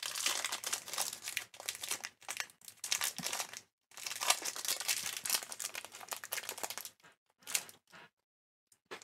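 Shiny plastic chocolate-bar wrapper crinkling and tearing as it is pulled open by hand, in two long stretches of crackling with a short pause between, then a few brief rustles near the end.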